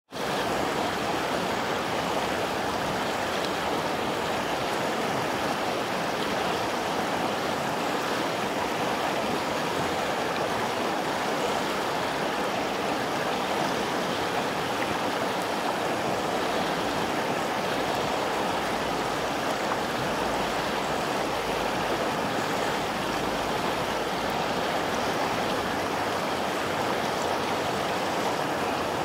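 Shallow Alpine river running fast over stones and gravel, close to the microphone: a steady rush of water.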